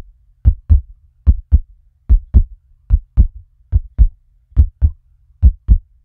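Heartbeat: a steady lub-dub of paired deep thumps, about seven beats, a little more than one a second.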